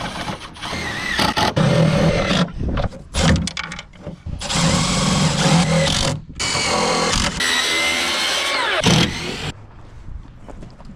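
A power tool running in several stop-start bursts, its motor pitch gliding as it slows before cutting off near the end.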